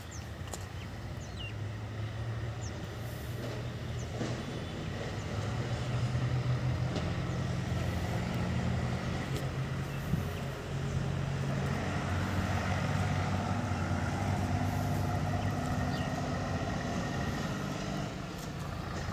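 A heavy diesel engine running steadily, growing louder over the first several seconds, holding, then easing off near the end.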